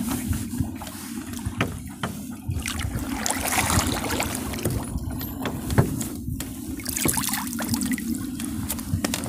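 Lake water splashing and trickling beside a small boat as a dead mallard hen is grabbed and lifted dripping out of the water, with occasional knocks of handling against the boat.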